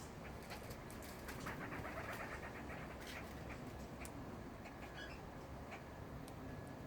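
Parrots among larch branches: scattered sharp clicks and snaps, with a quick run of soft chattering notes about a second and a half in and a short chirp about five seconds in.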